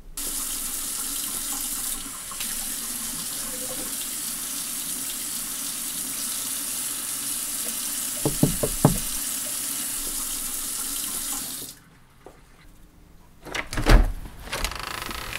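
Water running from a tap in a steady hiss for about twelve seconds, with a few light clinks about eight seconds in, then shut off suddenly. A couple of sharp knocks with a heavy thump follow near the end.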